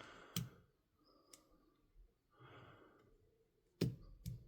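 A few small sharp clicks of BBs and plastic being handled while a couple of BBs are pushed into a gas blowback pistol magazine, with a sigh about halfway through.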